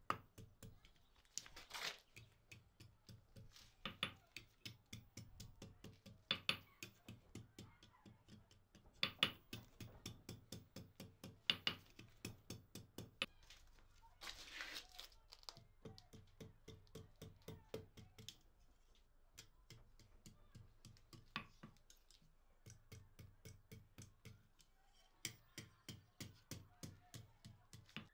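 Hand hammer tapping a thin red-hot iron rod on a small square block anvil: a steady run of light taps, about three a second, with a harder blow every couple of seconds.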